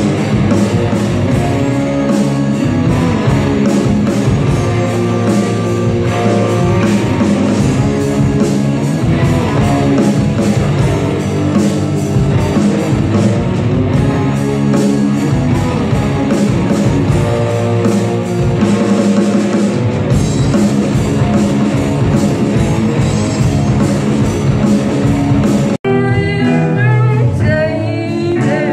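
Live rock band playing loud electric guitars, bass, drums and keyboard. About 26 s in the sound cuts off abruptly and a different song picks up, with a singer's voice over the band.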